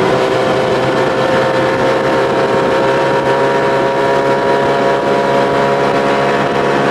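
Evinrude two-cylinder two-stroke outboard, a 25 hp converted to 30–35 hp with a bigger carburettor, running steadily at speed under way; a throaty, even engine note whose pitch creeps up slightly in the first couple of seconds.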